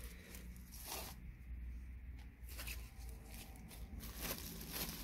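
Faint rustling and crinkling of plastic bags being handled, with a few short crackles scattered through, over a low steady background hum.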